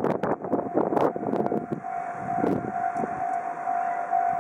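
Railway level crossing warning bell ringing, a steady ringing tone, as a train approaches. The first couple of seconds are mixed with clattering noise, which fades about two seconds in, leaving the bell clear.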